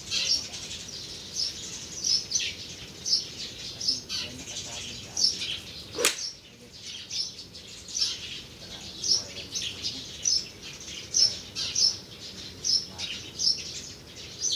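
Birds chirping, short high calls repeating about once or twice a second, with a single sharp click about six seconds in.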